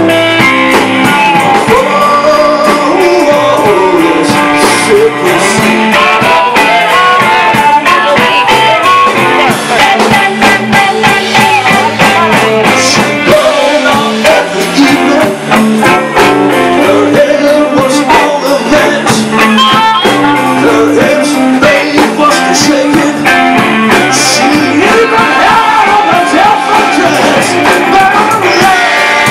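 Live blues band playing: a man sings over electric guitar and the band.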